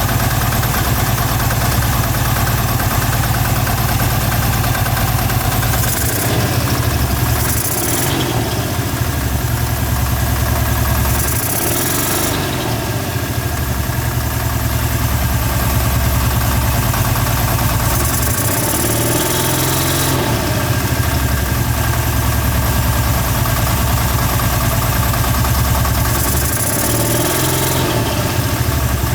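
Kawasaki Teryx 750 V-twin engine running with its primary and secondary clutches removed, knocking steadily and revved up a few times. The knock comes from a worn connecting rod bearing in the rear cylinder, number 2, after the engine was run low on oil.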